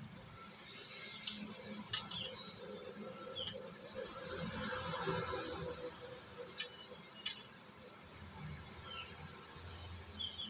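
Steady insect chirring, likely crickets, with several sharp clicks scattered through it, mostly in the first half, and a few short bird chirps.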